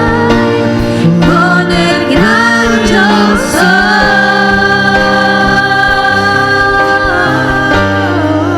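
Gospel worship music with held, sliding sung notes over sustained keyboard chords.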